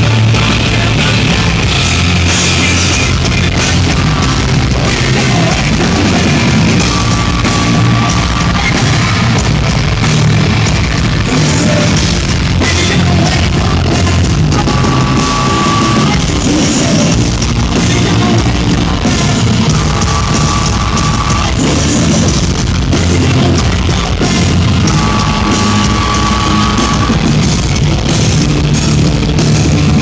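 Live hard rock band playing loud, with distorted guitars, bass, drums and vocals. A held high note comes back every five seconds or so.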